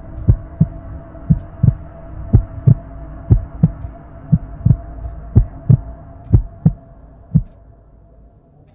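Heartbeat sound effect: slow lub-dub double thumps about once a second over a steady hum, dying away near the end.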